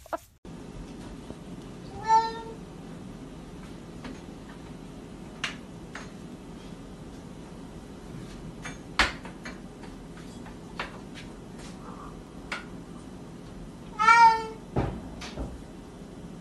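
Tabby cat meowing twice, once about two seconds in and again near the end, with sharp clicks and knocks between as it paws at a door's lever handle. A steady low hum runs underneath.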